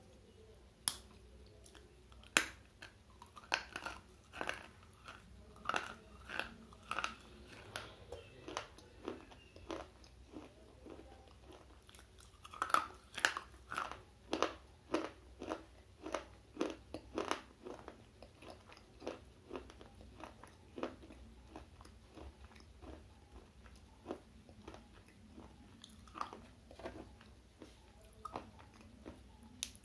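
Slate pencil being bitten and chewed close to a microphone: a long run of sharp, brittle crunches, densest in the first half and thinning to occasional softer crunches later.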